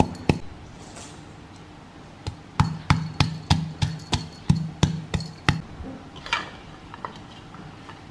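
Wooden pestle pounding in a wooden mortar, crushing garlic and herbs into a kroeung spice paste. After one knock at the start, a run of regular thuds at about three a second begins some two seconds in and stops after about three seconds, followed by a few lighter knocks.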